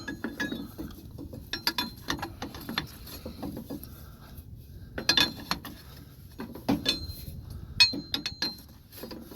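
Metal hand tools clicking and clinking irregularly while a hydraulic line fitting is worked on, with sharper clusters of clicks about two, five, seven and eight seconds in.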